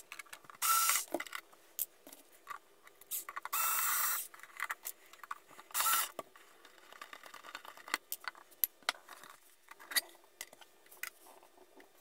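Electric screwdriver whirring in three short bursts in the first half, backing out the screws of a metal instrument case. After that come scattered small clicks and taps as the case is handled and the cover comes off.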